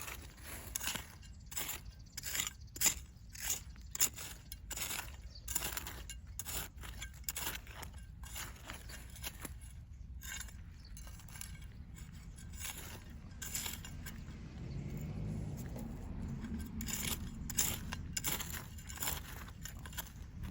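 Irregular scrapes and crunches of a hand tool in garden soil while digging up potatoes, several strokes a second at first and thinning out in the second half.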